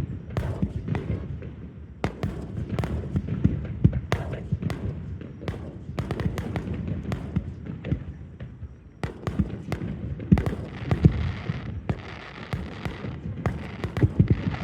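Fireworks exploding in a rapid barrage: many sharp bangs and deep booms in quick succession, with a stretch of crackling hiss about eleven seconds in.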